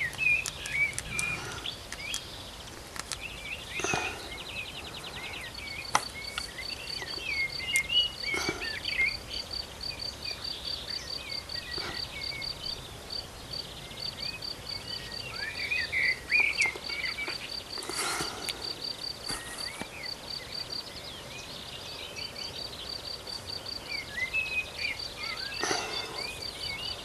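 Outdoor ambience of small birds chirping and twittering, joined from about six seconds in by a high, evenly pulsing call that repeats rapidly and steadily. A few soft knocks come through now and then.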